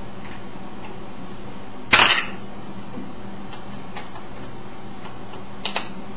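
Canon Digital Rebel XT digital SLR firing its shutter, a loud mirror-and-shutter clack about two seconds in. A few light clicks follow, then a quick double click near the end, over a steady background hiss.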